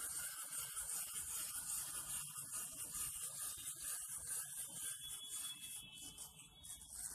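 Clockwork spring motor of a wind-up toy dog running, a fast gritty whir that fades toward the end as the spring runs down.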